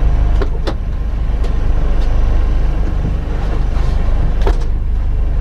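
Car engine running with a steady low rumble, and a few sharp clicks in the first second and again near the end.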